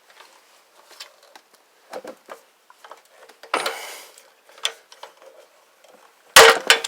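Hand pop-rivet gun setting a 3/16-inch pop rivet in a stripped recoil bolt hole: light clicks and knocks of the tool being worked, then a loud sharp snap near the end as the rivet's mandrel breaks off and the rivet is set.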